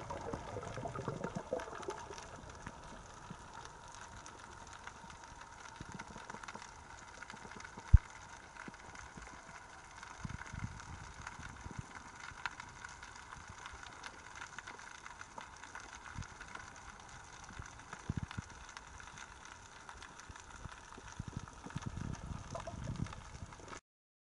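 Muffled underwater sound picked up by a camera in its waterproof housing: a steady hiss with a few soft low water surges and one sharp knock about eight seconds in.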